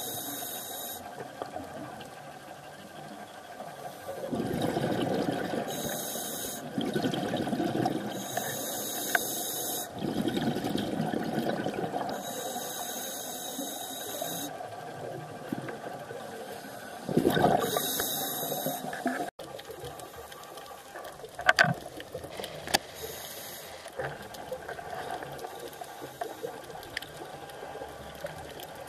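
A scuba diver breathing through a regulator, heard underwater: a hissing inhalation every few seconds, each alternating with a rush of bubbling exhaust. About two-thirds of the way through, the sound drops to a quieter bubbling with a few sharp clicks.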